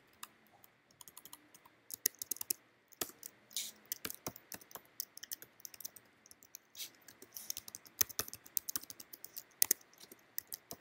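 Typing on a computer keyboard: quick bursts of key clicks with short pauses between them, sparse at first and busier after about two seconds.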